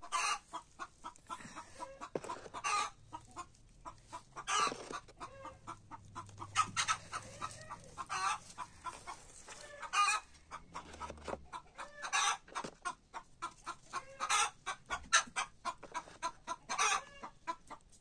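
Chickens clucking in short, repeated calls, with a louder, longer squawk every two seconds or so.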